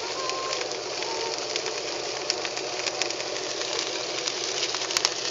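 A boat's engine running steadily while under way, under a constant rush of wind and water noise with scattered small crackles.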